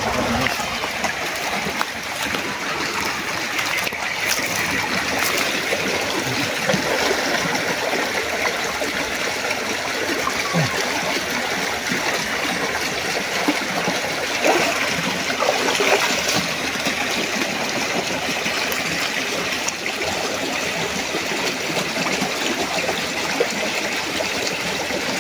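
Shallow stream rushing and splashing over rocks, a steady wash of running water.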